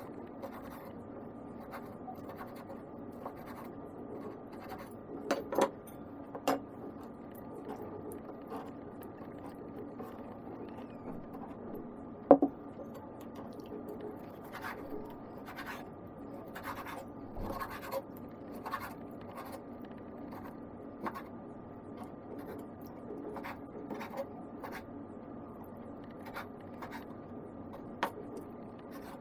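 Kitchen knife cutting raw chicken breast on a wooden cutting board: irregular knocks and scrapes of the blade against the wood, with a few louder knocks, over a faint steady hum.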